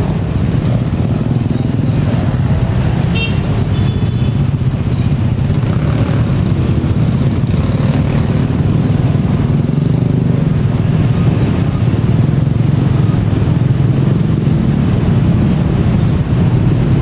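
Steady low rumble of a KRL TM6000 electric commuter train, an ex-Tokyo Metro 6000 series unit, running along the track as it draws away.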